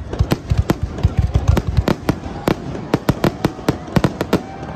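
Fireworks display's closing barrage: aerial shells bursting overhead in rapid succession, about five bangs a second, stopping shortly before the end.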